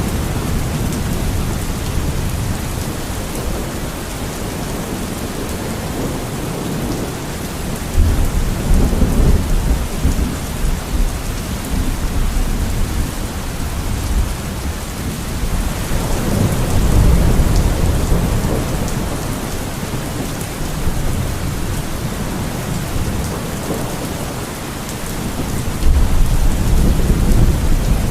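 Steady rain falling, with low rumbles of thunder swelling in about a third of the way in, again around the middle, and once more, suddenly, near the end.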